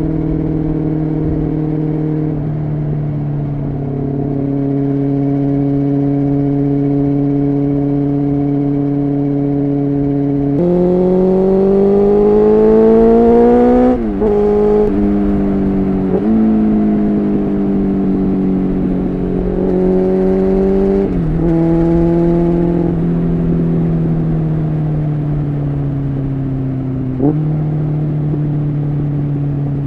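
Honda CBR600F3's inline-four engine under way: a steady cruise for about ten seconds, then the revs climb with a few quick drops in pitch at upshifts, before settling back to a steady cruise.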